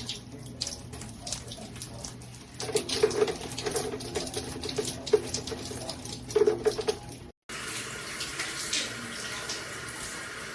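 Water spraying from a handheld shower head and splashing, uneven for most of the time; it cuts out abruptly a little past seven seconds and comes back as a steadier spray.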